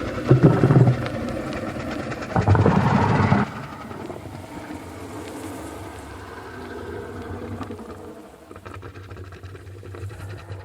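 Dragon sound effect: two loud, low, rough bursts about two seconds apart, then a quieter rumbling that fades away.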